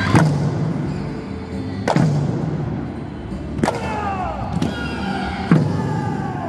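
Okinawan eisa drums struck in unison: five sharp hits, one to two seconds apart, each leaving a low booming ring. Between the hits a sung folk-song accompaniment carries on.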